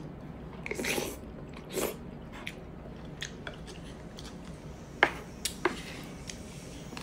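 Close-miked eating sounds: wet chewing and lip smacks of pork hock and rice, with a couple of sharp clicks about five seconds in.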